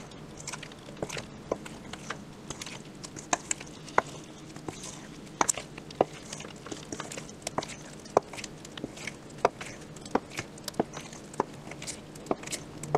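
Metal spoon clinking and scraping against a stainless steel mixing bowl while thick pancake batter is stirred slowly, with irregular light clicks one or two a second over a faint steady hum.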